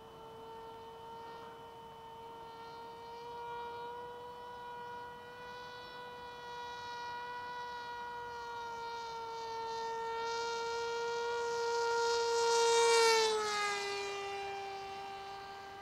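Electric motor and propeller of an AR Pro FPV flying wing flying a fast low run toward the listener and past. It is a steady high whine that grows louder, then drops sharply in pitch about thirteen seconds in as the plane passes, and fades as it flies away.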